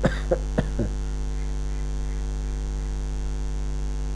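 Steady low electrical mains hum picked up by the recording setup, with a few short clicks in the first second.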